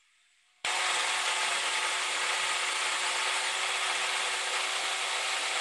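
Food processor motor switched on about half a second in and running steadily at full speed, puréeing a batch of cilantro chimichurri, with a constant whir under a steady hum.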